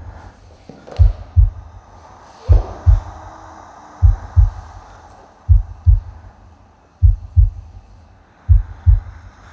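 A slow heartbeat sound in the soundtrack: deep double thumps in a lub-dub pattern, one pair about every second and a half, six pairs in all. Faint airy swells sit between the beats, one falling in pitch about two and a half seconds in.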